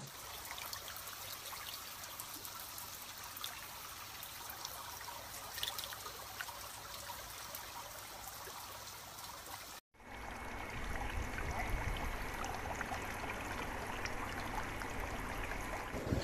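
Shallow water trickling and lapping around a hand holding a goldfish, with small splashy ticks. About ten seconds in the sound drops out for an instant and gives way to a steadier, louder rushing with a low rumble.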